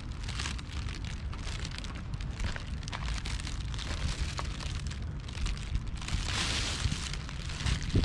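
Wind rumbling on the microphone, with a brief burst of hissing noise about six seconds in.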